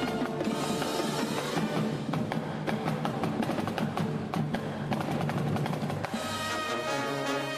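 A police marching band playing live: a busy passage of snare and bass drums, with the band coming in on held chords about six seconds in.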